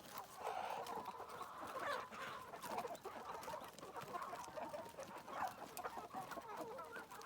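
A flock of chickens clucking and chirping over one another while feeding on greens, with scattered sharp ticks among the calls.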